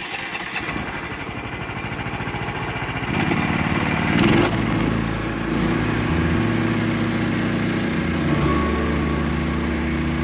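Norwood LM30 sawmill's small gasoline engine running just after being restarted on a fresh tank of gas. It picks up speed about three seconds in, then settles into a steady run.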